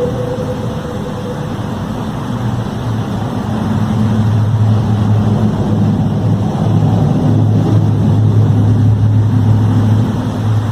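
A loud, steady, deep hum with a rumbling noise under it, growing a little louder about four seconds in; a fading horn-like tone is heard in the first second.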